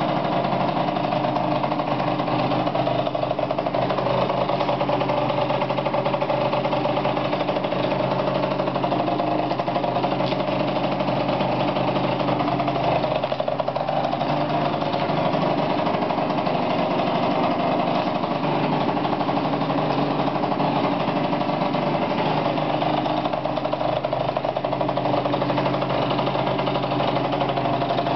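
Yamaha Aerox scooter's two-stroke engine idling steadily, with an even pitch that neither rises nor falls.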